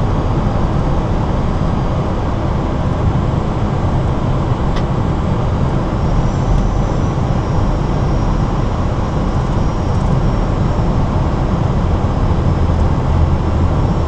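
Steady flight-deck noise of an Airbus A320 on short final approach: a loud, even rush of airflow and engine noise. A faint high whine comes in about six seconds in, and there is a single soft click near five seconds.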